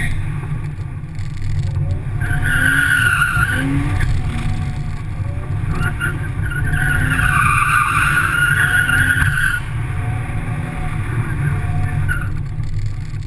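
Car engine revving hard through repeated drift slides on wet pavement, in surges of a few seconds each, with a constant heavy rumble on the hood-mounted microphone.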